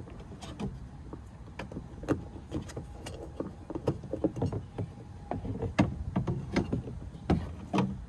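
Irregular clicks, knocks and rattles of the door handle and lock parts being worked loose inside a 2008 Cadillac CTS car door. They come faster and louder in the second half.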